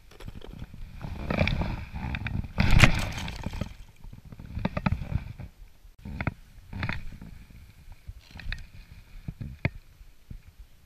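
Irregular clicks, knocks and rustling from fishing tackle being handled on an inflatable float tube, with one louder burst of rustling about three seconds in.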